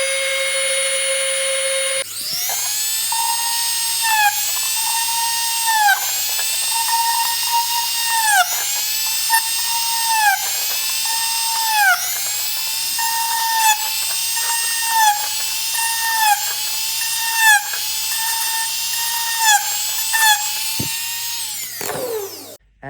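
Small high-speed electric rotary tool grinding plastic to fit the bottle around the fan. It runs with a steady whine at first, then its pitch sags and recovers every second or two as it is pressed into the material, and it spins down with a falling whine near the end.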